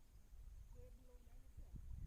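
Near silence: a faint low outdoor rumble, with a faint short distant call about a second in.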